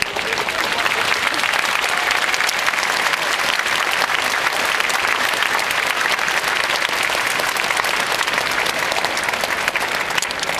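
Large crowd of spectators applauding, a dense steady clapping with voices mixed in.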